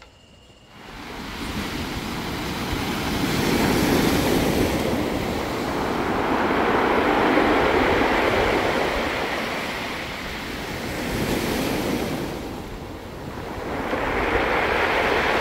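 Pacific surf breaking and washing up the beach: a loud, steady rush that begins about a second in and swells and eases in long waves, dipping shortly before the end and building again.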